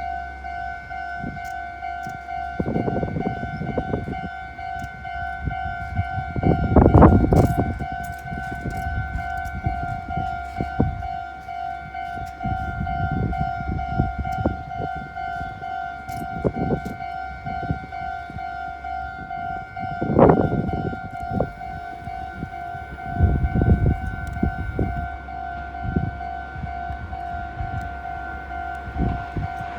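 Japanese railway level-crossing alarm ringing its repeating electronic 'kan-kan' bell tone without a break. Several louder low rumbles come and go over it, the loudest about seven seconds and twenty seconds in.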